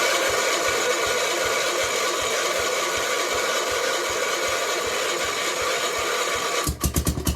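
Gravely tractor's engine being cranked over by its electric starter on choke, a steady whir with a faint regular beat, and catching near the end into an even, fast-firing run. It is a cold start after weeks unused, on a carburettor the owner calls dirty and hard starting.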